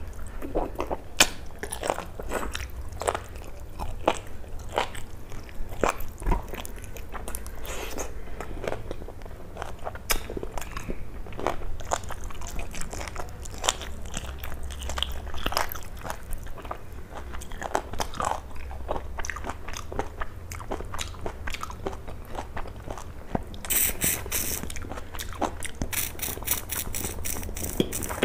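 Close-up eating sounds: biting and chewing a curried piece of meat off the bone by hand, a run of wet smacks and small crunching clicks. Near the end the clicks come thicker and crisper.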